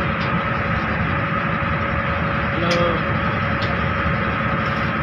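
Steady rumble of idling truck engines in a queue of vehicles, with a faint steady hum over it. A brief voice cuts in once, a little past halfway.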